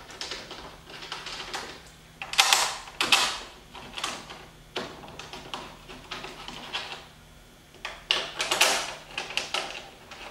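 Hand-fitting a spoiler piece onto a car's rear decklid and starting its screws by hand: scattered scrapes, rubs and small clicks, loudest about two to three seconds in and again about eight seconds in.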